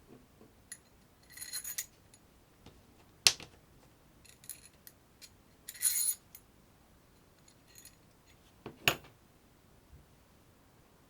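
Small hard parts being handled: scattered ticks, two short metallic jingles a little over a second in and about six seconds in, and two sharp clicks about three and nine seconds in.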